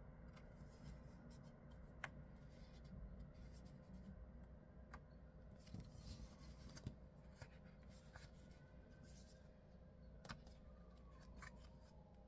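Faint paper rustling with a few light clicks, from sticker book pages being handled and turned, over a low steady room hum.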